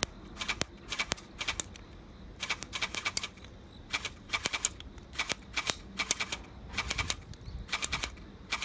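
Academy GSG-522 airsoft electric gun firing BBs in a string of short rattling bursts of quick clacks, one burst about every half second to a second.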